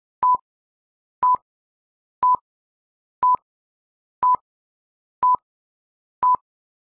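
A short electronic beep of one steady pitch, repeating exactly once a second, seven times, like a countdown or sync tone.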